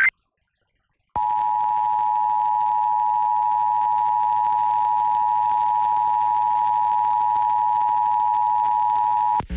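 Emergency Alert System two-tone attention signal, 853 and 960 Hz sounded together: a steady electronic tone that starts about a second in and holds for about eight seconds before cutting off. It follows the last moment of the digital SAME header burst, and a low mains hum starts just as the tone ends.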